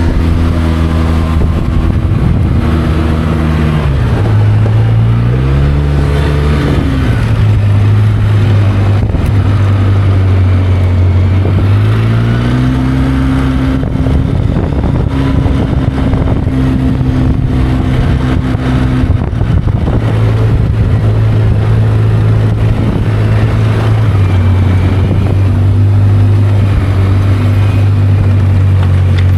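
Vehicle engine running under way, its pitch stepping up and down several times as it shifts and changes speed, with rattling from a rough road.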